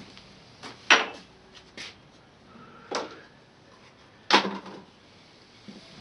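Four sharp knocks of objects being handled in a small room, each with a brief ring. The loudest come about a second in and again a little after four seconds in.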